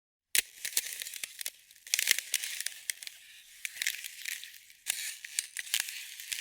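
Ice cracking and crackling: a dense run of sharp cracks and clicks that starts abruptly just after a brief silence, with louder clusters about two seconds in and again around five seconds.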